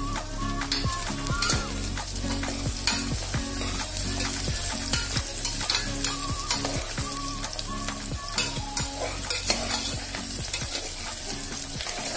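Chopped onions and green chillies sizzling in an aluminium pressure-cooker pot while a slotted spoon stirs them, scraping and clicking against the pot again and again.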